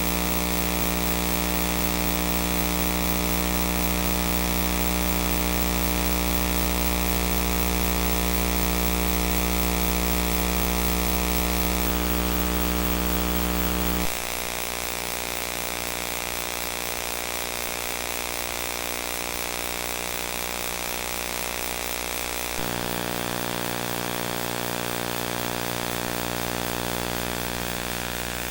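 DVD player buzzing: a steady electrical buzz with many overtones. About halfway through it drops a little in level and loses much of its deep hum. A little later it shifts in tone again.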